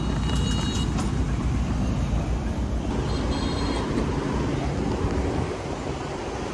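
Busy city-street traffic: cars, a bus and electric scooters passing through an intersection, with a heavy low rumble. It gets somewhat quieter near the end.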